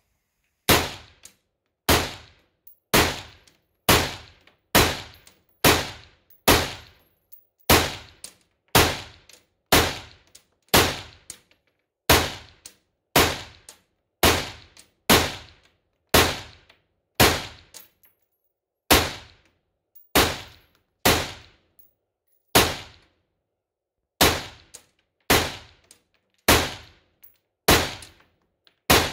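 Lux Def Tec LDT15 AR-15 rifle in .223 Remington fired semi-automatically: a steady string of single shots at about one a second, with one slightly longer pause midway, each crack echoing briefly off the walls of an indoor concrete range.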